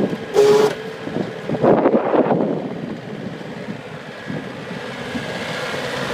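Mustang 2040 skid steer running steadily, with a short loud burst and whine about half a second in and a louder, rougher surge around two seconds in.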